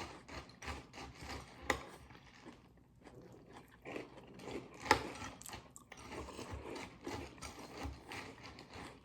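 Chewing crunchy Cap'n Crunch cereal: a run of small, irregular crunches and clicks, with a couple of sharper ones.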